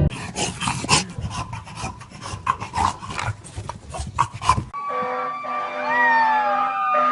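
A dog panting and snuffling close to the microphone in uneven scratchy strokes. After about four and a half seconds it cuts off suddenly to steady held tones with a falling, howl-like call.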